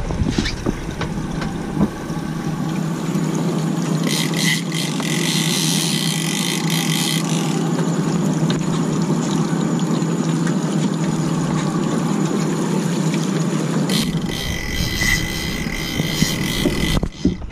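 Sportfishing boat's twin outboard motors running steadily at low speed with water rushing along the hull. Twice a high steady whine rises over it for about three seconds, about four seconds in and again near the end.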